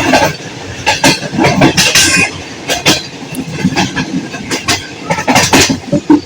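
Passenger train running on the track: wheels clattering over the rails in a run of sharp, unevenly spaced knocks and rattles over a steady rumble.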